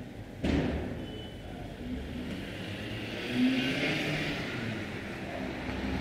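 A sudden thump about half a second in, over steady outdoor background noise that swells and fades again around the middle.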